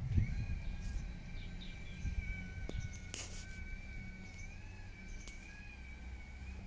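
Garbage truck idling, a steady low engine hum under a sustained high two-note whine that wavers slightly now and then.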